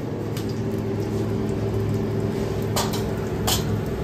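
Steady hum of a kitchen chimney's exhaust fan over the stove, with three short crackles, about half a second, near three seconds and three and a half seconds in, as cumin seeds hit hot mustard oil in the pan.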